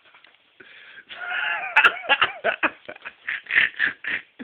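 A man laughing breathlessly: a short high-pitched rise, then a quick run of wheezy bursts.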